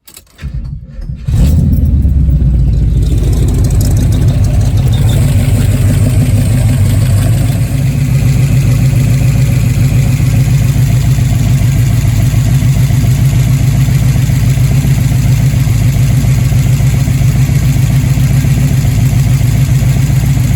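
Pontiac 455 V8 with a Holley 750 carburettor and a Lunati Voodoo camshaft cranks briefly and fires about a second in, then runs at a loud, steady idle. Its idle vacuum is not quite steady, which the owner puts down to the 110-degree lobe-separation cam.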